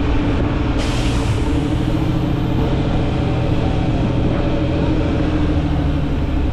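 A vehicle engine running steadily at an even pitch, with a dense rushing noise underneath.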